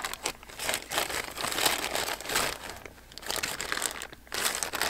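Clear plastic bag crinkling as it is handled, in several stretches with short pauses.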